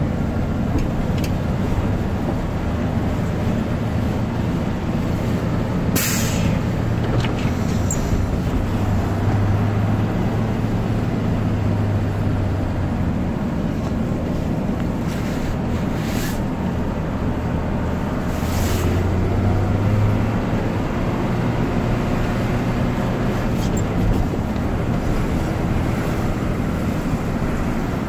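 Iveco Eurocargo truck's engine running steadily while driving, heard from inside the cab, with a low hum that swells a little now and then. A few short hisses break in.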